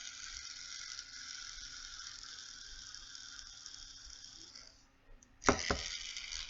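Cheap plastic fidget spinner spinning on its bearing, a steady whir that fades out about four and a half seconds in as it spins down. A few sharp clicks follow about a second later as the spinner is handled.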